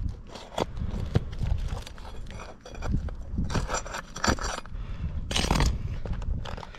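Scraping and rubbing against roof shingles with scattered clicks, as old roofing nails are worked loose and pulled out. There are two longer scraping passes in the second half.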